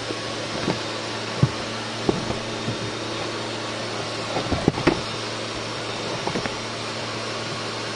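VacuFlo 560 central vacuum running: a steady rushing hum, with a few light knocks and taps, clustered about one and a half to two seconds in and near five seconds.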